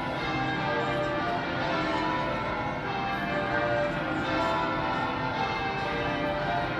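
Church bells ringing, several bells sounding one after another at different pitches, their tones overlapping and ringing on.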